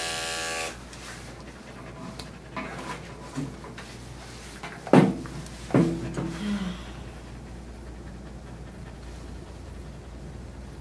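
Electric dog grooming clippers buzzing and switching off under a second in, then a dog panting, with two short, sharp sounds about five and six seconds in.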